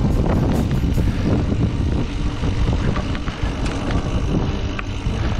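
Riding noise from a Specialized hardtail mountain bike on dirt singletrack: a steady low rumble with scattered clicks and rattles.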